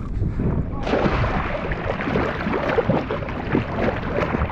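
Seawater splashing and churning close by, starting suddenly about a second in and running on as an irregular spattering wash over a low rumble.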